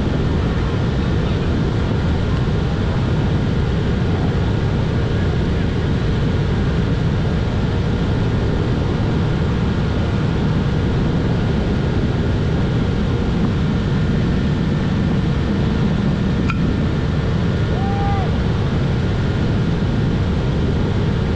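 Steady low rumble of wind buffeting the microphone, with one sharp click about three-quarters of the way through.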